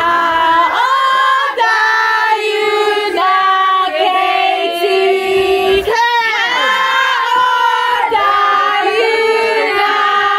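A group of voices, women and children, singing a birthday song together in held, drawn-out notes.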